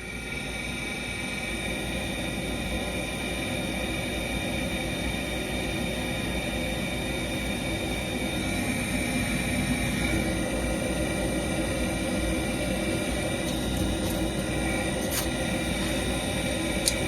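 A Trane propane furnace running on a call for heat with its new hot surface igniter: a steady whirring run with faint high whines. It starts abruptly and grows slightly louder over the first few seconds.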